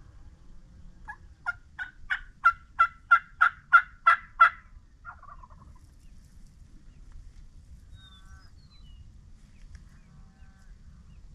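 Wild turkey yelping: a run of about ten evenly spaced yelps, about three a second, growing louder, with a short trailing note just after.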